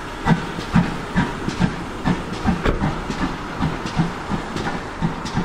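GWR 42xx-class 2-8-0T steam tank engine No 4247 moving off slowly, its exhaust chuffing about twice a second over a steady hiss of steam.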